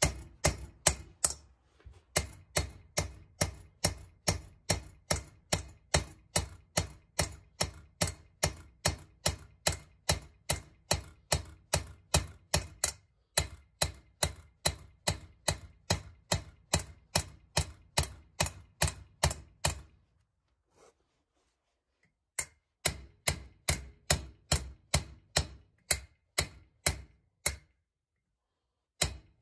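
Hammer blows on a punch driving a valve guide in: a steady run of sharp strikes, about two to three a second. There is a pause of about two seconds some two-thirds of the way through, and a short break near the end.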